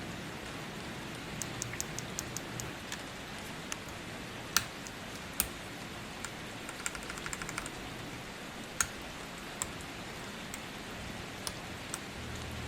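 Scattered keystrokes on a mechanical keyboard fitted with clear keycaps: a few short quick runs of clicks and some louder single key presses. Steady rain hisses underneath.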